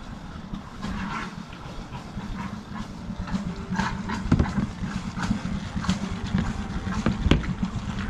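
Plastic lid handled over a hot-spring basin: a run of knocks and clatters, the loudest about four and seven seconds in, over a steady rumble of wind on the microphone.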